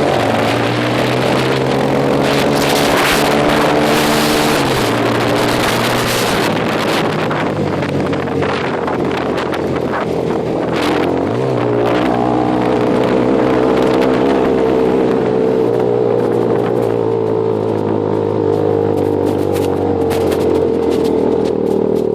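A vehicle engine running under load while driving off-road, its note dropping and changing pitch about four and a half seconds in and again about eleven seconds in, with scattered knocks and rattles over the first half.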